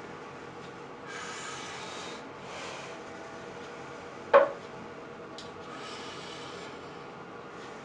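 A person's heavy breaths out, three of them, with a burning mouth after very hot chili sauce. A single sharp knock about four and a half seconds in is the loudest sound.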